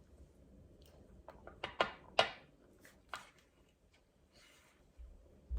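Light clicks and taps of small plastic toy pieces being handled, about half a dozen over two seconds, then a faint rustle.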